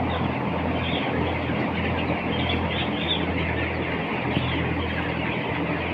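A flock of broiler chickens chirping and clucking over a steady low mechanical hum.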